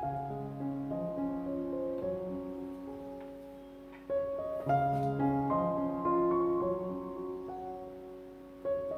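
Background piano music: held chords, with new notes struck about four seconds in and again near the end.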